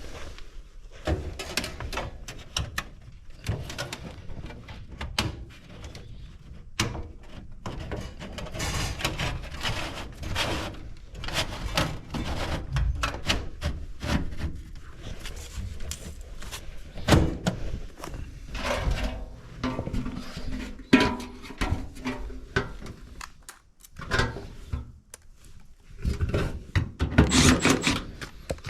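A furnace filter being pushed and worked in its slot, with repeated irregular knocks, thunks and scraping.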